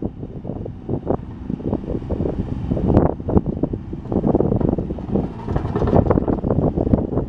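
Komatsu PC20MR-1 mini excavator's diesel engine running, with gusty wind buffeting the microphone.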